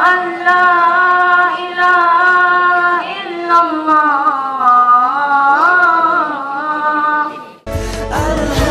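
A single unaccompanied voice chanting long, held, gently ornamented notes. About seven and a half seconds in it cuts off, and music with a deep bass and beat starts.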